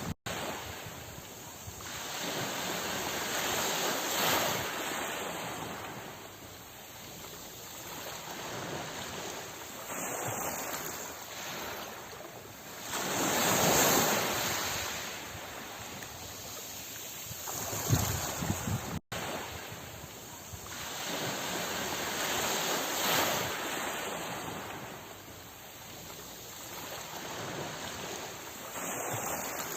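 Sea waves breaking and washing ashore in slow swells, each rising and fading over a few seconds. A momentary dropout cuts the sound near the start and again about 19 s in, where the recording loops.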